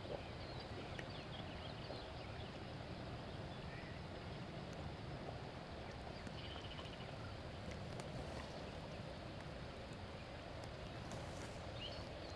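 Steady outdoor ambient noise with a few faint, short bird chirps scattered through it.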